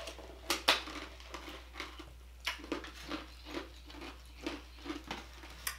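Close-miked chewing of fried chicken tenders: wet mouth sounds repeating about two to three times a second, with a couple of sharper clicks about half a second in.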